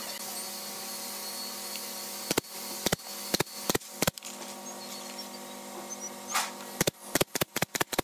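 Nail gun firing brads into the cabinet's wooden side panels. It fires five sharp shots a few tenths of a second apart, then a quicker run of about seven shots near the end, over a steady background hum.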